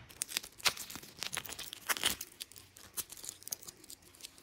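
Thin plastic protective film being peeled and crinkled off a wristwatch: a run of short crackles and small rips that tails off near the end.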